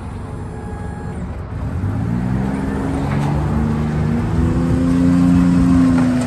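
John Deere Gator XUV 835M utility vehicle's three-cylinder gas engine running. It picks up speed from about two seconds in, rising in pitch and loudness, then begins to ease off near the end.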